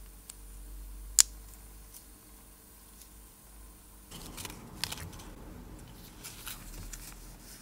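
A single sharp click about a second in, then, from about four seconds in, paper watch-crystal packets being handled: rustling and crinkling with small crackles.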